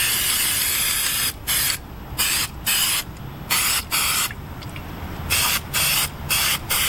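Aerosol can of Fluid Film rust inhibitor spraying: one long hiss of about a second and a half, then a string of about ten short bursts.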